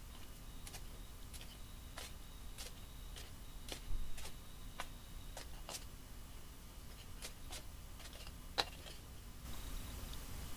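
Light, irregular clicks and taps of a thin metal spatula against a plastic bottle and paper cup while scooping powdered potassium nitrate onto a digital scale, with two louder taps, about four seconds in and about eight and a half seconds in.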